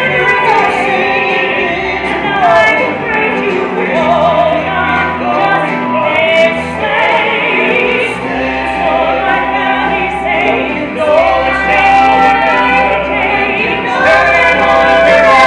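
Musical-theatre cast singing together in harmony over band accompaniment, in a full Broadway-style song.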